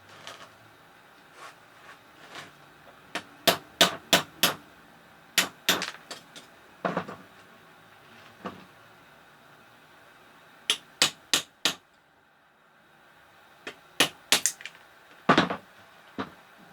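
Sharp metal-on-metal knocks in quick groups of two to five, with short pauses between them. A tool is knocking the heads off drilled-out rivets on the cover of a Toshiba twin-tub washing machine's wash motor.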